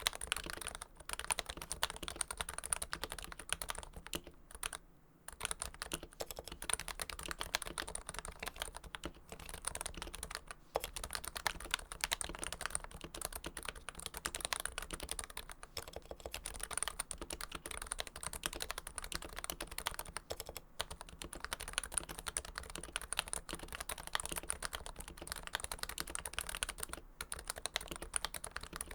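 Steady typing on a Topre keyboard, a Realforce Hipro plate in a first-generation Realforce TKL case with its switches lubed with Krytox 105: a dense run of keystrokes with a brief pause about four seconds in.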